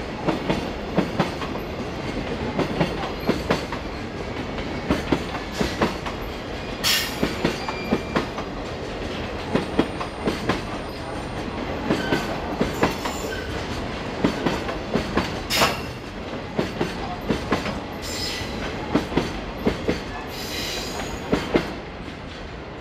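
Freight train's container flatcars rolling past, steel wheels clattering over rail joints in a steady clickety-clack with a few brief high screeches from the wheels. The last wagon goes by near the end and the clatter falls away.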